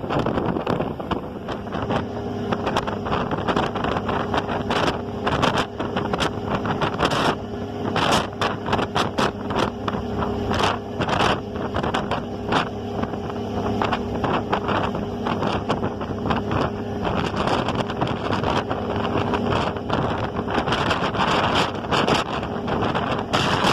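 Ferry engine running with a steady hum, with wind buffeting the microphone in frequent crackling gusts.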